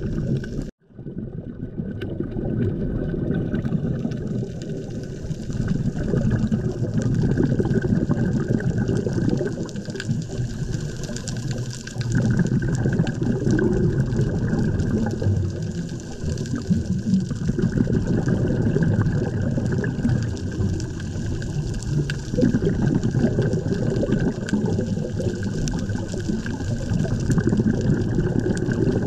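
Scuba diving heard through an underwater camera: a continuous low gurgling rush of a diver's regulator and exhaled bubbles, surging unevenly. There is a brief drop-out less than a second in.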